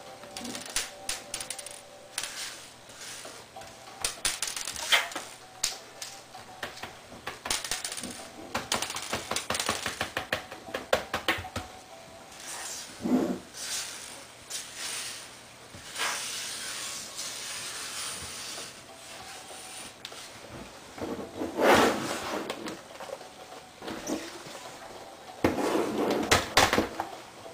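Irregular clicks, taps and short scrapes of small hard parts, such as screws, plastic panels and metal pieces, being handled while a laptop is taken apart. There are louder clatters toward the end.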